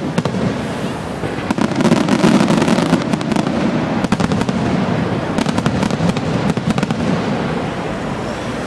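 Fireworks display going off: a dense run of rapid bangs and crackling over a continuous rumble, heaviest about two to three seconds in.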